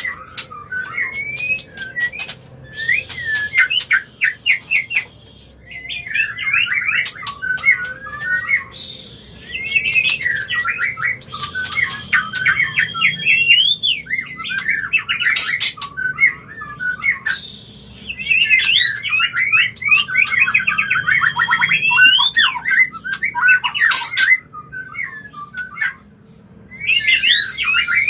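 White-rumped shama (murai batu) singing its breeding-condition 'kawin' song: fast runs of varied whistled notes that glide up and down, broken by harsh buzzy chatter, in several bursts with brief pauses between them.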